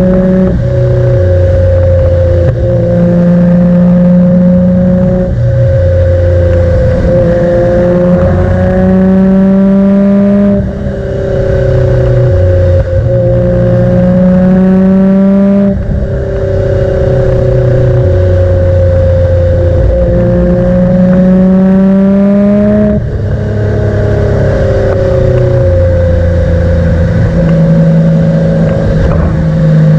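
Nissan Skyline R32 GT-R's RB26 twin-turbo straight-six pulling hard under acceleration, its pitch climbing through each gear and falling abruptly at three upshifts, each with a short dip in level.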